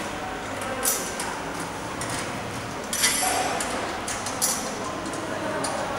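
Metal clinks and knocks as parts of a stainless steel frame are fitted together by hand, with a sharper metallic clank about three seconds in that rings briefly. A steady background hiss runs underneath.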